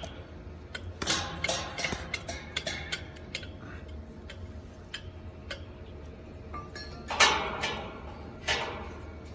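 Irregular light metallic ticks and taps from work on a steel box-section roof-frame joint, with a quieter stretch in the middle and a couple of short rushing sounds near the end.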